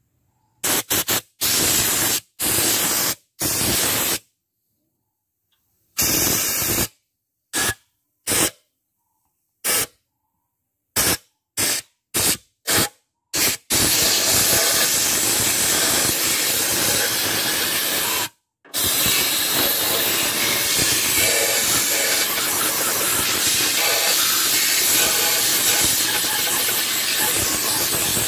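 A high-pressure spray lance hissing as it blasts a cylinder head clean: over a dozen short bursts in the first half, then a steady jet from about halfway, broken once briefly.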